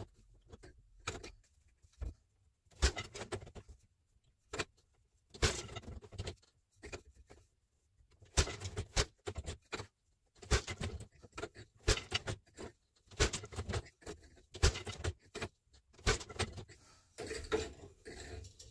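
Handweaving on an 8-shaft loom: wooden clacks and knocks of the boat shuttle passing through the shed and the beater packing the weft. The strokes are irregular at first, then come in a steady working rhythm about every second and a half.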